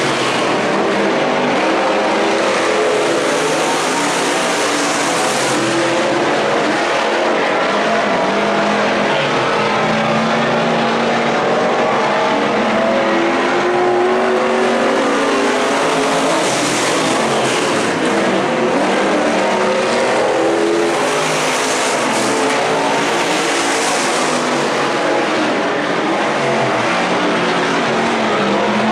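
IMCA Stock Car V8 engines racing around a dirt oval, heard from the grandstand. The engines run as a loud, steady drone whose pitch keeps rising and falling, with brief swells of high hiss as cars come past.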